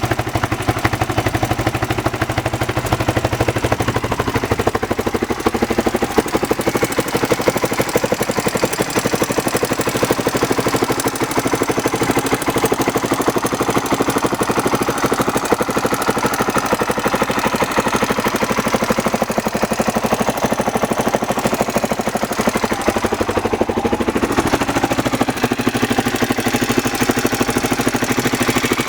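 Honda XR600R's air-cooled single-cylinder four-stroke engine idling with a ticking noise that the owner is asking about as a possible fault.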